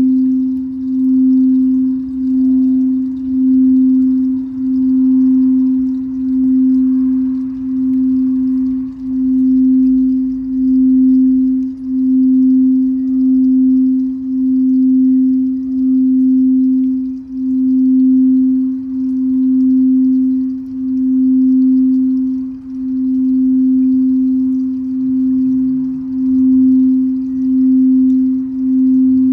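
Frosted quartz crystal singing bowl sustained by a mallet worked around its rim, giving one steady low tone that swells and dips roughly once a second.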